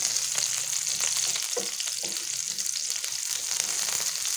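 Sliced red onions sizzling and crackling in hot cooking oil in a pan, with a wooden spatula stirring them. The oil spits with a steady high hiss and many small pops.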